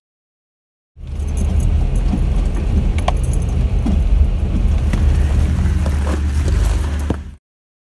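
Jeep driving slowly over a rocky off-road trail: a steady low engine hum with scattered clicks, knocks and rattles. It cuts in about a second in and stops abruptly near the end.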